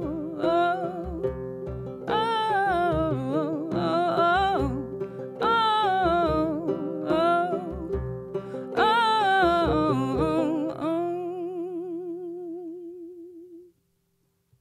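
End of a folk song: a woman's wordless sung line with vibrato over a plucked replica of an 1855 banjo and a steady frame drum beat. About eleven seconds in the instruments stop, and the voice holds a last note that fades out.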